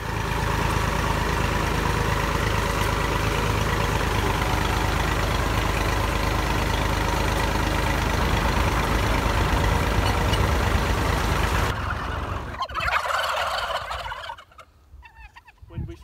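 Tractor engine running steadily as it drives, then cutting off abruptly about twelve seconds in; after it, a flock of turkeys gobbles for a couple of seconds.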